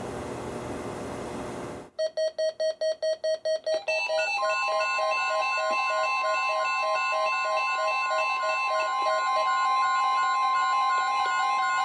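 Several weather alert radios sounding their alarms together for a Required Weekly Test. A hiss cuts off about two seconds in, and rapid beeping at about five pulses a second sets in. Some two seconds later a steady tone and more pulsing beeps at other pitches join and keep going.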